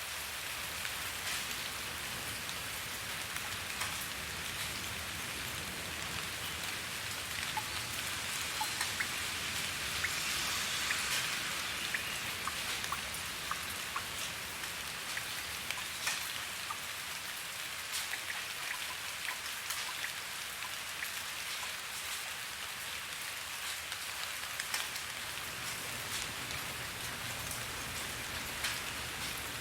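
Steady rain falling, a continuous hiss with many individual drops ticking close by; it swells slightly about a third of the way in.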